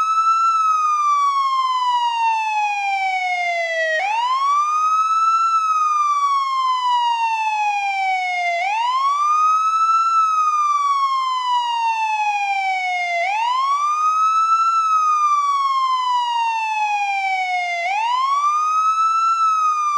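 American police siren on its wail setting. The tone sweeps up quickly and then glides slowly back down, repeating about every four and a half seconds.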